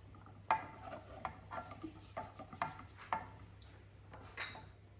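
A cooking utensil clicking and scraping against a pan while stirring gram flour roasting in butter: light, uneven taps, about two a second.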